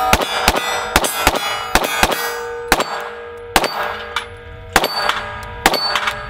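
SIG P365 X-Macro 9mm pistol fired in a string of about ten shots, quicker in the first two seconds and slower after, with steel targets clanging and ringing on between shots.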